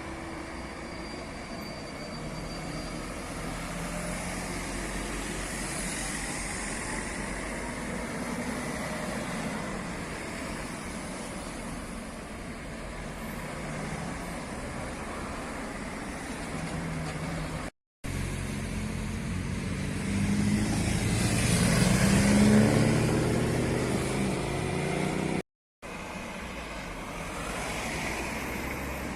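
Tuned cars' engines running and driving by, with one car accelerating louder and rising in pitch about two thirds of the way through. Broken twice by brief dead gaps.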